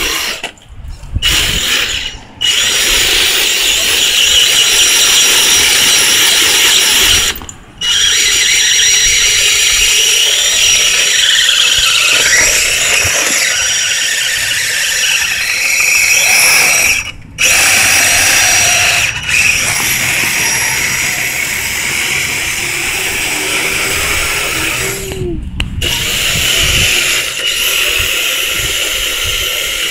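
The electric drive motor and gears of a 6x6 RC rock crawler whine as it climbs rocks and drives across grass. The pitch wavers with the load, and the sound stops for a moment several times.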